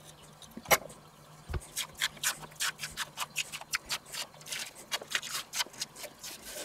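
Thin sausage casing crackling and tearing in quick irregular bursts as it is peeled off a ring sausage by hand. A sharp click comes a little under a second in, and a dull knock about a second and a half in.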